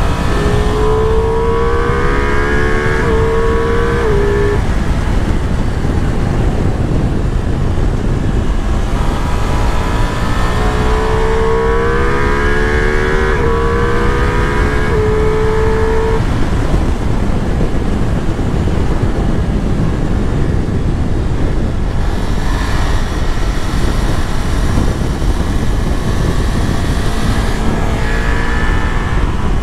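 Ducati Multistrada V4 S's V4 engine accelerating hard twice, its note climbing through quick upshifts each time, under a constant loud rush of wind on the microphone.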